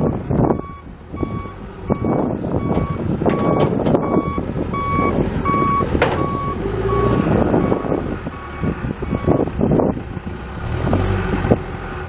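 Backup alarm on a 2007 John Deere 310SJ backhoe beeping a little over twice a second while the machine reverses, over its four-cylinder diesel engine running, with scattered knocks and clatter. The beeping stops about ten seconds in.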